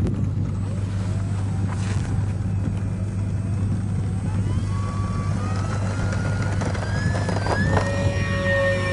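Model PC-6 Porter's electric motor and propeller spooling up for a takeoff roll: a whine that rises steadily in pitch over several seconds, then levels off high near the end, over a steady low hum.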